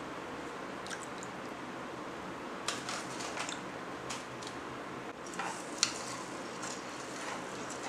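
A few light clicks and taps of a small spoon against an aluminium cooking pot as salt is spooned into the water, the loudest about six seconds in, over a steady low hiss.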